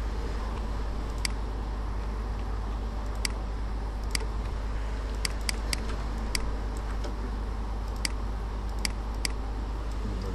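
Computer mouse clicking about ten times at uneven intervals, a few clicks in quick succession, over a steady low hum and hiss of room noise.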